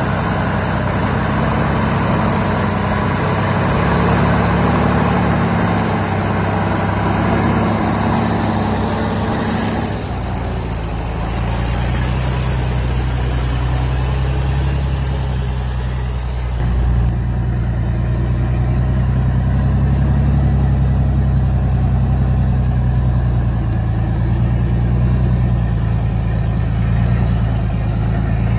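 Modified logging truck's engine running steadily at low revs. Its note changes abruptly about a third of the way in and again just past halfway, then holds steady.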